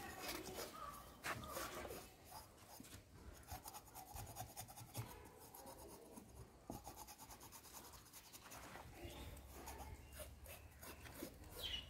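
Faint, irregular rasping strokes of a steel tumbler's rim scraped over a cow's wet coat, scraping off caked dirt and dead hair.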